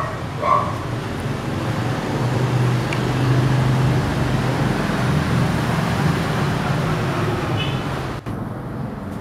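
Steady road-traffic noise, a vehicle engine growing louder around a third of the way through and easing off again; a brief voice right at the start, and the sound cuts out for an instant near the end.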